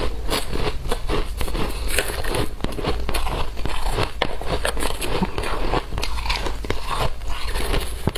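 Shaved ice being bitten and chewed close to the microphone: a continuous dense run of crisp crunches.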